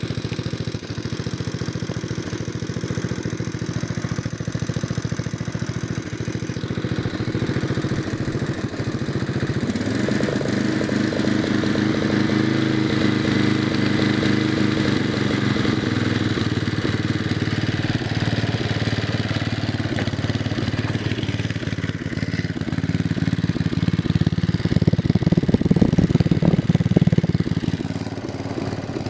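Retrofit 10 hp Tecumseh single-cylinder engine on a BCS two-wheel tractor, running steadily in neutral at part throttle just after being started. Its note shifts about ten seconds in and grows louder a few seconds before the end, then settles back.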